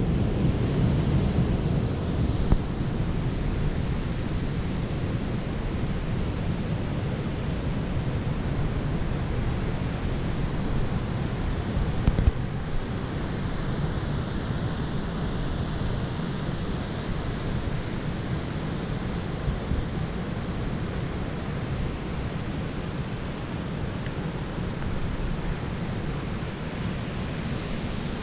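Steady low rushing of wind buffeting the microphone, with a couple of brief knocks, one about two and a half seconds in and one about twelve seconds in.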